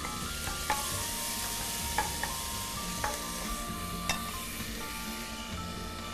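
Onion and tomato sizzling in olive oil in a stainless steel pot, stirred with a spatula that knocks against the pot a few times.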